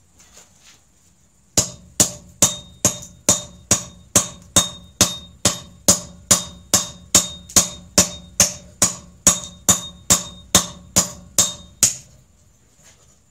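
Steady hand-hammer blows on hot steel: an adze head being forged on a sledgehammer head used as an anvil. About 25 sharp, ringing metal-on-metal strikes come a bit over two a second, starting about a second and a half in and stopping near the end.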